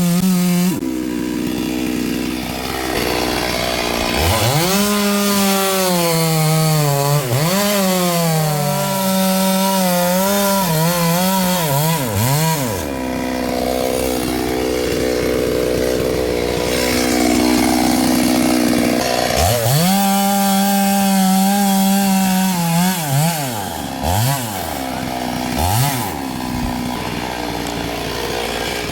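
Stihl two-stroke chainsaw cutting wood: it revs up to full speed and bogs and wavers under load, drops to a lower steady run for several seconds in the middle, then revs and cuts again, with a few short blips of the throttle near the end.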